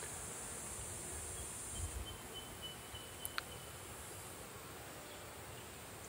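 Faint outdoor ambience: insects giving a steady high-pitched buzz that drops away about two seconds in and comes back weaker, with a thin faint whistle through the middle and a single light click.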